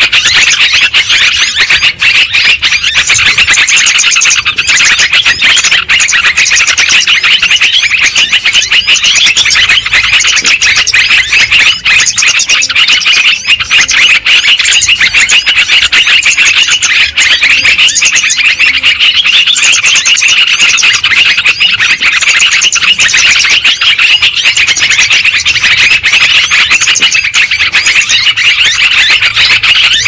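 Yellow-vented bulbuls (terucukan) calling and chattering loudly in a dense, unbroken stream of rapid notes, with no pauses.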